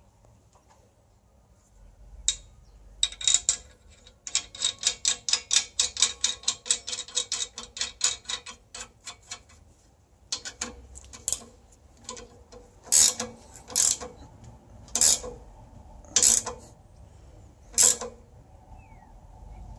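Ratchet spanner clicking as it turns a bolt in a rivnut set in a steel box section: a fast run of sharp clicks, about four a second for five seconds, then five separate louder clicks about a second and a half apart.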